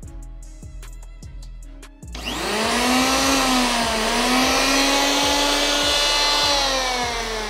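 Bosch GHO 26-82 D electric planer's 710 W motor and cutter drum switched on about two seconds in, whining up to speed, running steadily with no wood being fed, then slowing with a falling whine near the end. Background music with a steady drum beat runs under it.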